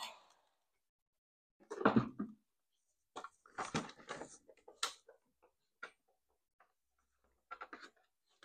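A heat gun's steady blowing cuts off at the very start. After that come scattered faint taps, clicks and rustles as the heated Kydex plastic sheet is handled and pressed against the RC truck's chassis.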